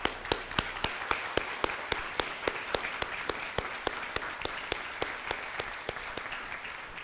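Audience applauding. One person's claps, close to the microphone, stand out sharp and regular, about three to four a second, over the steady clapping of the crowd.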